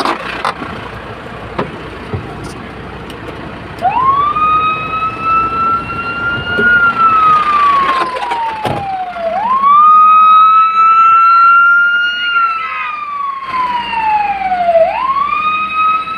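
Fire engine's siren starting up about four seconds in and wailing: the pitch jumps up, climbs slowly, then falls slowly, over and over, with each cycle lasting about five and a half seconds.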